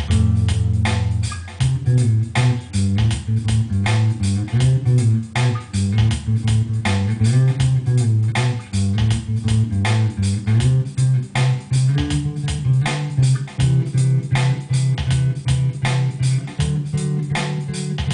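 Bass guitar playing a melodic solo line of plucked notes over a steady programmed drum-machine beat.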